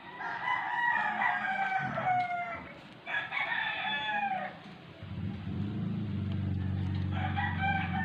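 Roosters crowing: three long crows with falling pitch, one near the start, one about three seconds in and one near the end. A low steady hum comes in about halfway.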